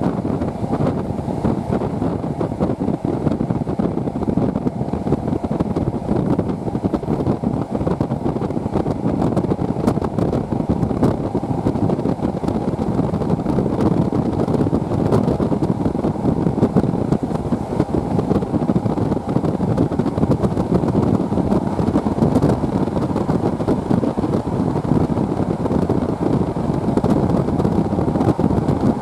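Passenger train running along the line, heard from an open carriage window: a steady rumble and clatter of wheels on the rails, with wind buffeting the microphone.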